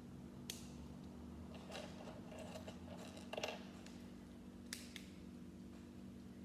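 Small plastic Lego pieces clicking and rattling as they are handled and pressed together, with a sharp click about half a second in, a busier clatter around the middle, and two more clicks near five seconds, over a low steady hum.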